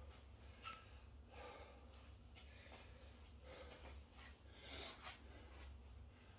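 A man's faint, heavy breathing as he catches his breath between burpees: several breaths in and out, over a low steady hum.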